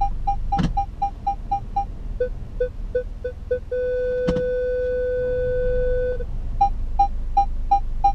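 Peugeot 208 parking-sensor beeps inside the cabin during an automatic Park Assist manoeuvre. A higher-pitched beep repeats about three times a second and quickens to about five a second. Then a lower-pitched beep quickens and turns into a continuous tone for about two and a half seconds, the signal that an obstacle is very close, before the higher beeps return. Two sharp clicks come about half a second in and just past four seconds.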